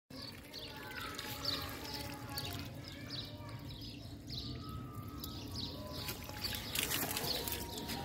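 Water from a garden hose pouring into a flooded plant pot, with a bird chirping over and over in the background.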